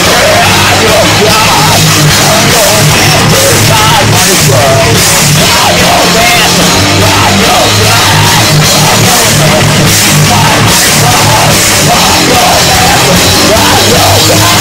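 Live punk-metal band playing loud: electric guitars and bass with crashing cymbals, and a singer yelling into the microphone over them.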